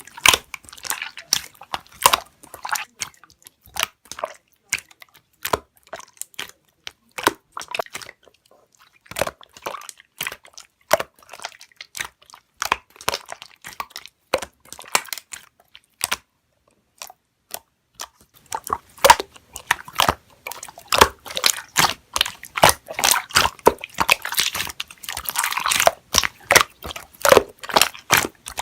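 Slime being squished and poked by hand, making dense, irregular clicking and crackling sounds, with a brief pause a little past halfway and busier crackling toward the end.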